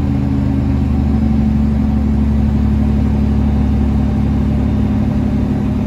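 Semi truck's diesel engine running steadily at a constant pitch, heard from inside the cab on a long downhill grade in low gear.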